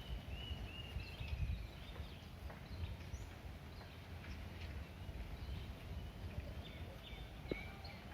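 Short, high, slightly falling chirping calls from a small animal, repeated several times over a low rumble with scattered clicks.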